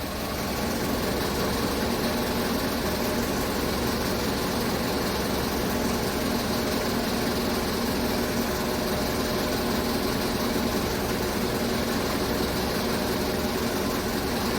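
2015 Chevrolet Tahoe V8 engine idling steadily. It has a misfire that moves between cylinders when plugs are swapped, which the mechanic puts down to worn or damaged spark plugs.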